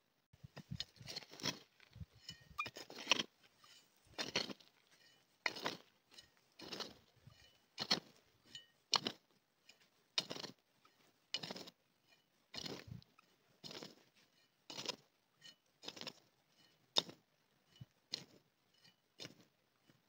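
Small short-handled spade (chhota fawda) chopping into dry, stony soil and scraping it aside while digging a shallow channel along a field edge, one stroke about every second.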